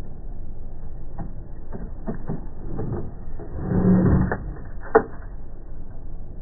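A few scattered clicks and knocks over a steady low rumble, with a louder scraping rumble about three and a half seconds in and a single sharp click about a second later.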